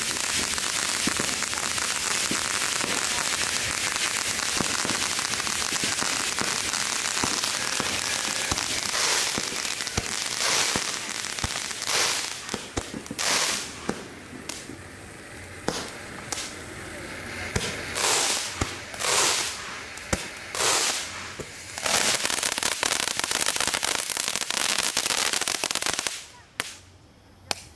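Ground fountain firework burning: a steady spraying hiss with many small crackling pops. Midway the spray comes in a run of separate surges, then runs steady again and cuts off suddenly near the end.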